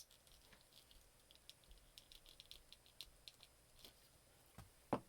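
Faint, scattered light clicks and taps of a plastic action figure being handled, with a sharper knock near the end.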